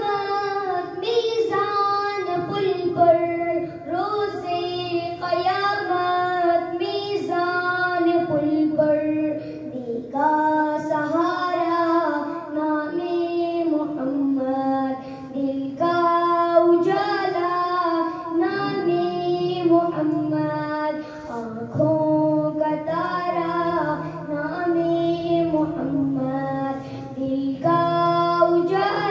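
A boy singing a naat without instruments into a microphone, his voice played through a loudspeaker, in long held phrases with short breaths between them.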